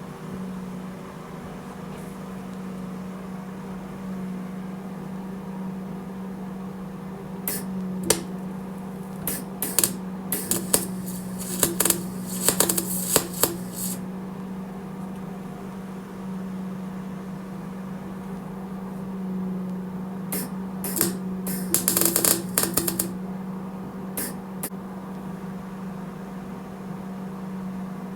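Gas-shielded MIG welder humming steadily, with two spells of short, sputtering arc crackle as weld is built up in the worn bearing groove of a steel mower-deck spindle: one of about six seconds, one of about two and a half, then one brief burst.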